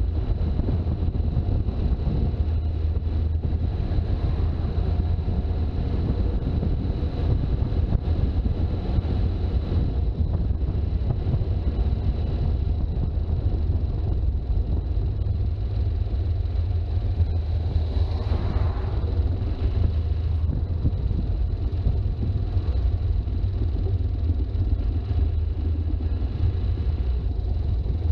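Toyota HJ61 Land Cruiser driving, a steady low rumble of engine and road noise, with a brief rising sound about two-thirds of the way through.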